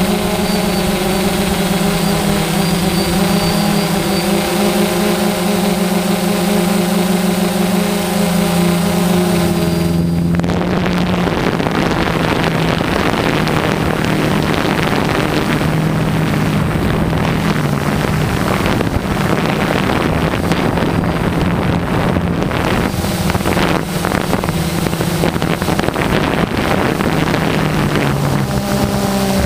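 DJI Phantom quadcopter's electric motors and propellers humming steadily, picked up by the onboard camera. About ten seconds in, the pitched hum gives way to rushing wind noise with a fainter hum beneath; the clearer hum returns near the end.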